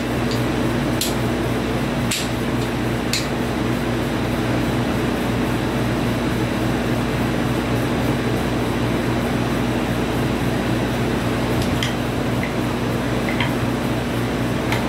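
Portable air conditioner running with a steady hum, a few low tones held constant. A few faint light clicks, about a second, two seconds and three seconds in and again near the end, as wooden train track pieces are handled.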